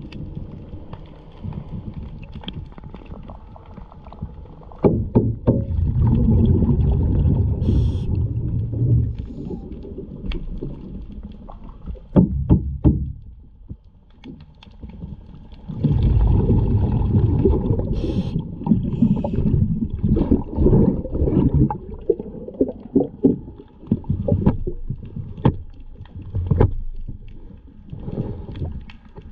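Underwater rumble of a scuba diver's exhaled bubbles from the regulator, coming in long bursts of several seconds, with scattered sharp knocks of a hammer tapping the fibreglass hull, the loudest cluster about twelve seconds in.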